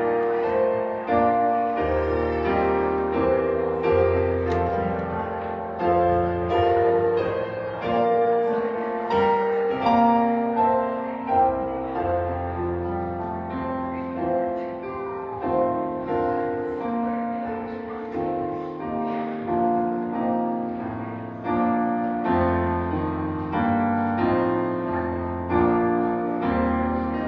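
Slow piano music: chords that change every second or two over low bass notes, each struck and left to ring.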